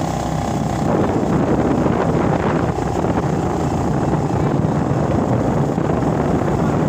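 Motorcycle running steadily while riding along a road, with wind rushing over the microphone.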